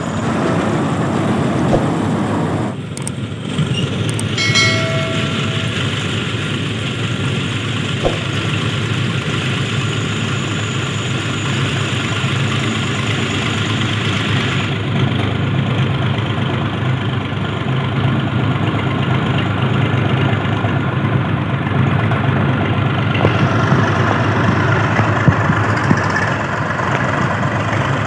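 Diesel tractor engines running steadily under load, with the rattle of a tractor-drawn soil loader's slatted elevator lifting earth. The nearest tractor is a Swaraj 744 FE, a three-cylinder diesel.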